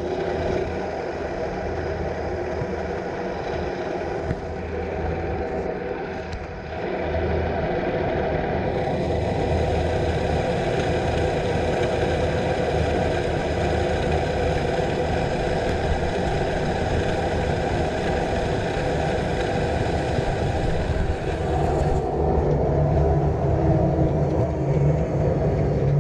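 Aerial cable-car cabin running along its cable: a steady mechanical hum with several held tones. Near the end, as the cabin pulls into the station, the highest tones drop away and a lower hum comes in.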